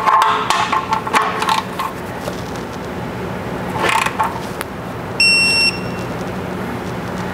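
Digital torque wrench giving one high, steady beep about half a second long, a little past the middle, the signal that the oil drain plug has reached its set torque of 18 ft-lb. A few light clicks come just before it.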